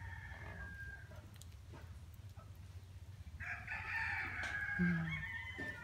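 A rooster crowing: one long, loud crow starting about three and a half seconds in, after a fainter call at the start.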